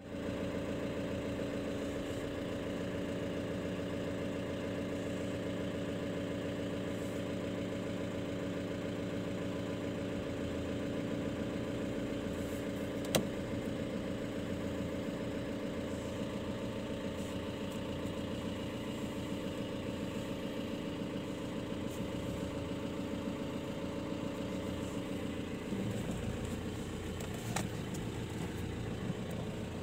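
Car engine idling steadily, heard from inside the cabin, with a single sharp click about 13 seconds in. The engine note shifts near the end.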